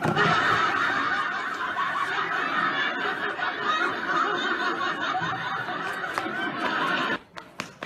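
Laugh track: a crowd laughing together, starting suddenly and cutting off about seven seconds in.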